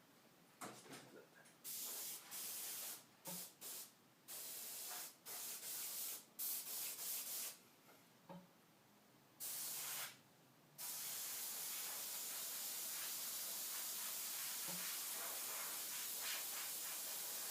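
Compressed air hissing from an airbrush fed by a TC-20T airbrush compressor: several short bursts as the trigger is pressed and released, then a steady hiss from about eleven seconds in.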